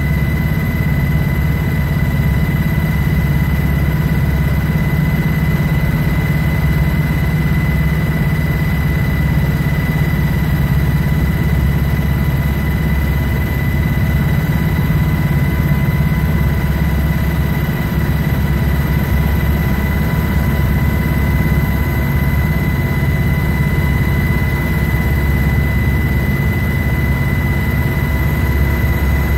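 Sikorsky UH-60 Black Hawk helicopter running steadily: a loud, constant deep drone with a steady high whine over it, with no change in pitch or level.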